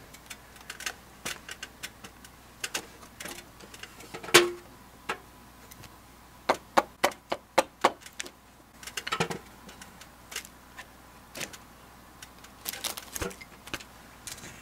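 Homemade wooden mallet striking a wooden peg into a purlin joint: irregular sharp knocks. The loudest comes about four seconds in, then a quick run of about six blows, followed by a few scattered taps.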